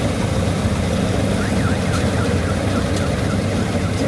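Heavy engine of farm machinery running steadily close by. About a second and a half in, a run of short high chirps, several a second, starts over it.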